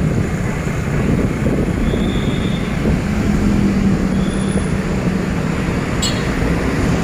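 Night road traffic heard from a moving vehicle: a steady rumble of engines and tyres. An engine hum holds one pitch from about three seconds in until near the end, with a short click near the end.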